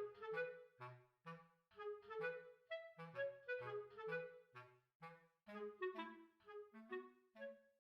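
Background music: a light, bouncy tune of short, separate wind-like melody notes over a plucked-sounding bass line.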